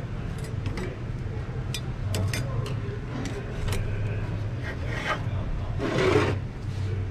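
Automatic transmission clutch plates, friction discs and steel plates, being handled and set down on a steel workbench: light metallic clinks and rubbing scrapes, with a louder scrape about six seconds in.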